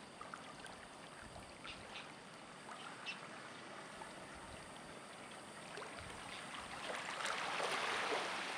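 Small waves lapping and washing softly on a sandy shore, swelling louder in the last couple of seconds. A few faint high chirps come about two to three seconds in.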